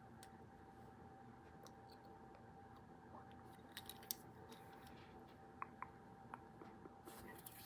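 Faint, sparse small clicks and taps over a steady faint hum, with the sharpest click about four seconds in and a few more in the second half.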